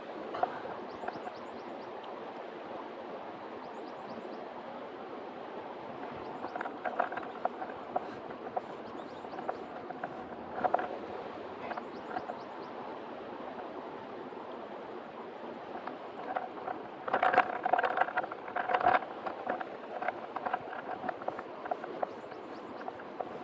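Steady rush of river water. Scattered brief louder sounds rise above it, with a cluster of them about two-thirds of the way through.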